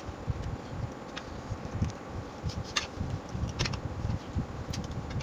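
Table sounds of two people eating: forks clinking against plates about five times, over irregular low chewing and handling thumps.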